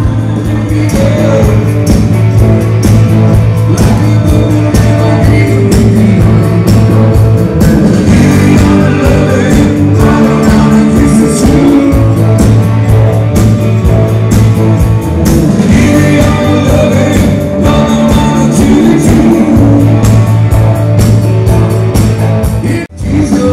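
Rock music with a singer, guitar and a steady beat, with a momentary dropout near the end.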